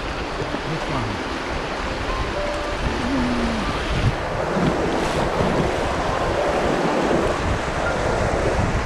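Rushing river water of a shallow riffle around the bow of an inflatable kayak, with wind buffeting the microphone. It is a steady rush that grows slightly louder as the boat runs into the rough water.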